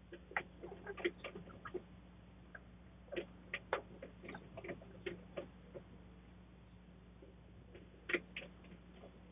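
Chickens pecking and scratching at feed and dirt: irregular clusters of short, sharp taps, heard through a security camera's microphone with a steady low electrical hum underneath.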